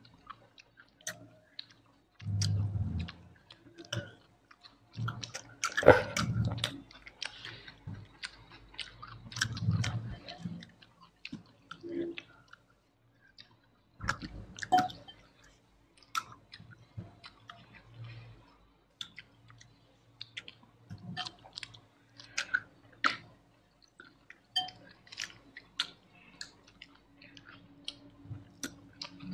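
Close-up chewing and mouth sounds of a person eating, with irregular bursts of chewing broken by short clicks and smacks.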